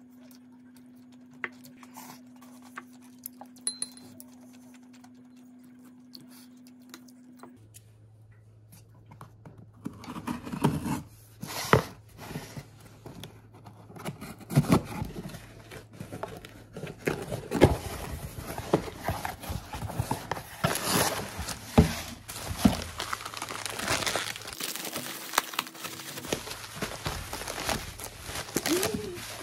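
A parcel being unpacked: scissors snipping, then cardboard flaps, bubble wrap and cellophane crinkling and rustling in quick irregular handling, with many sharp clicks. The first several seconds are only a low steady hum with a few faint clicks.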